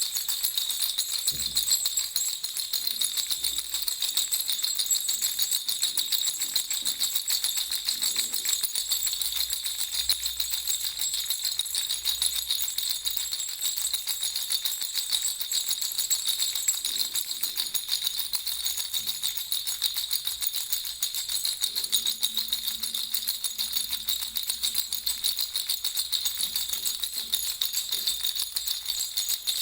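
Baby rattle (jhunjhuna) with small jingle bells shaken continuously, a fast, steady, unbroken jingling.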